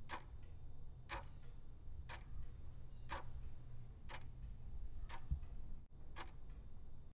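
Countdown-timer clock ticking steadily, about one loud tick a second with fainter ticks between, over a low hum.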